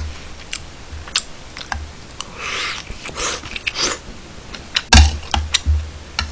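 Metal utensil clicking and scraping against a ceramic bowl of fried rice, with close-miked chewing and eating noises between the clicks. A heavier thump comes about five seconds in.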